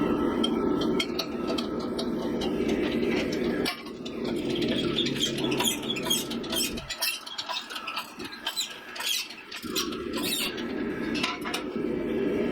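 A steady low running noise of forge-shop equipment, with many light metallic clinks and ticks. The running noise drops away for a few seconds about seven seconds in, then comes back.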